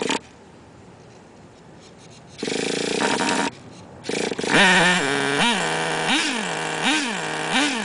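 Small nitro (glow-fuel) engine of an RC car being cranked in short bursts, catching about four and a half seconds in. It is then revved four times in quick blips and settles into a steady idle.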